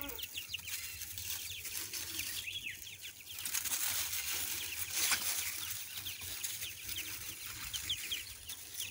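Baby chicks peeping, a constant stream of short, high, falling chirps, with a stretch of rustling in dry leaf litter from about three and a half to five and a half seconds in.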